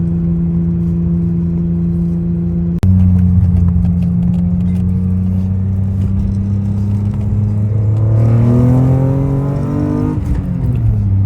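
BMW E36 M3's S50B30 straight-six with custom exhaust, holding a steady engine speed; after an abrupt cut about three seconds in, a deeper steady drone that climbs in pitch as the car accelerates around eight seconds in, then drops back near the end.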